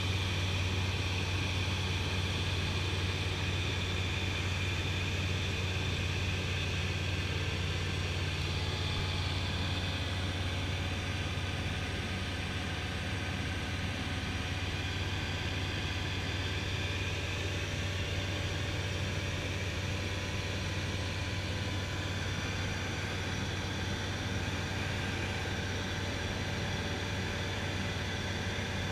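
Ultralight aircraft's engine and propeller running steadily in cruise flight, a constant low drone heard from inside the cockpit with airflow noise over it.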